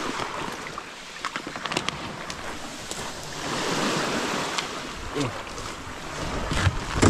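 Sea waves washing in at the shore, the wash swelling about three to five seconds in, with a few light knocks.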